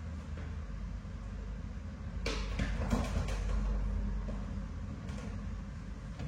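Low steady hum with a couple of soft knocks of small objects being handled, about two and three seconds in.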